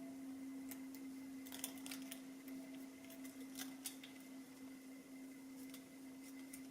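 Faint small metallic clicks and scrapes of a thin shim being worked into a padlock, a handful of sharp ticks within the first four seconds, over a steady low hum.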